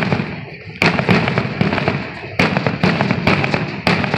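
Aerial fireworks exploding in a rapid barrage: a loud bang every half second to a second, with crackling in between.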